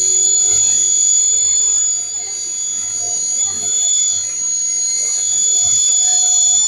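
MD500 scale RC helicopter in flight: a loud, steady, high-pitched whine from its motor and rotors, easing off slightly a couple of times.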